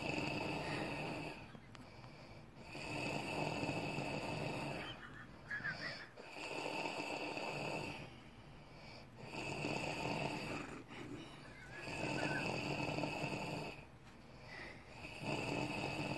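A man snoring in his sleep: a rasping snore on each breath, each about two seconds long, coming every three seconds or so, about six in all. Brief faint whistles sound in two of the pauses between snores.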